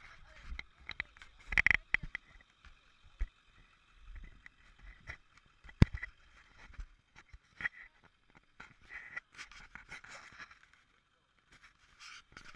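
Handling noise from a worn camera: rubbing and knocking against clothing, with sharp clicks near two and six seconds in.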